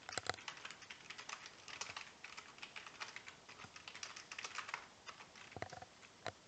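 Typing on a computer keyboard: quick runs of key clicks, with a couple of heavier key strokes near the end before it stops.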